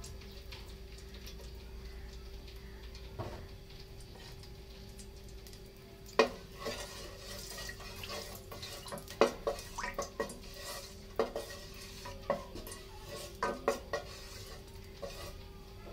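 Silicone spatula stirring ghee and oil in a metal cooking pot, knocking and scraping against the pot's bottom and sides in irregular strokes from about six seconds in, over a faint steady hum.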